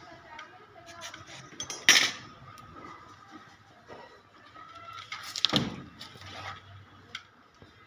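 A hacksaw blade scraping and clinking against a fibre-optic drop cable, with two louder scrapes about two seconds and five and a half seconds in.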